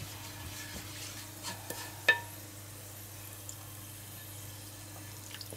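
Wooden spatula stirring and scraping garlic slices in hot oil in a frying pan, with a faint sizzle of the oil and a sharp tap about two seconds in, over a steady low hum.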